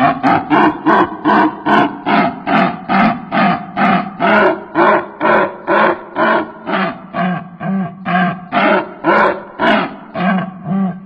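Lovebird making a strange, harsh call over and over at an even pace, about two or three calls a second.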